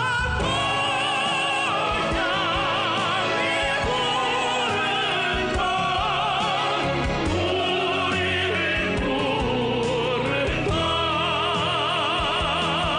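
A song playing: a singer holding long notes with strong vibrato over instrumental accompaniment.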